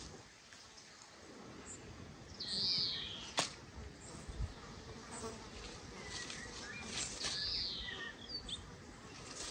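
Quiet outdoor background with a bird giving a high call that rises and falls, twice about four and a half seconds apart, among fainter chirps. A single sharp click comes about three and a half seconds in.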